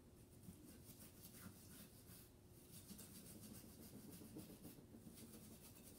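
Faint, irregular scratching of a small cleaning brush worked lightly along the rail grooves of a Springfield Hellcat 9mm pistol slide, sweeping out dust and gunpowder residue.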